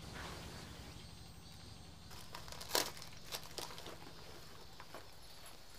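Small objects handled close by: a short run of crinkles and clicks about two to four seconds in, the sharpest just before the middle, over a low steady background.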